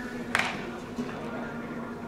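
A baseball bat strikes a ball once, a sharp crack about a third of a second in, over a steady background hum.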